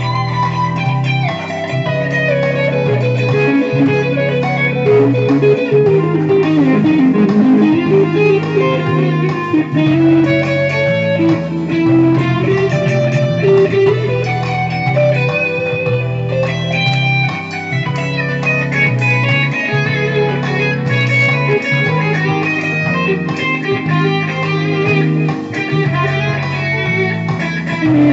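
Electric guitar improvising a lead line through the Positive Grid BIAS amp-modelling app, over a backing track in 7/4 with a repeating bass pattern underneath. The lead includes bent, gliding notes.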